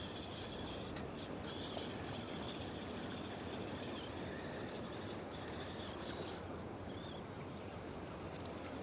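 Outdoor waterside ambience: a steady low background rumble with short high bird chirps now and then.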